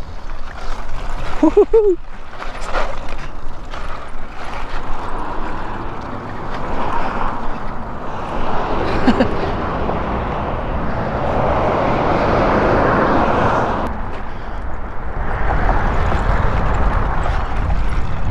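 Electric dirt bike riding over rock and loose dirt: tyres crunching, with a few sharp knocks from stones and a constant low wind rumble on the microphone. The noise swells a little past the middle, then eases.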